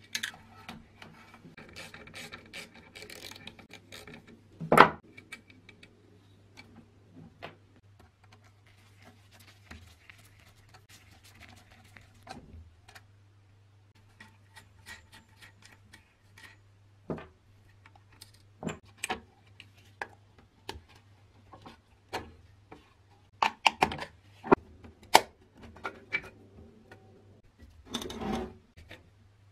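Irregular small clicks, taps and scrapes of hand work on a bench grinder's metal switch housing: a screwdriver on the terminal screws and wires being loosened. One sharp knock about five seconds in, and a run of quick clicks near the end as the capacitor and parts are handled and set down.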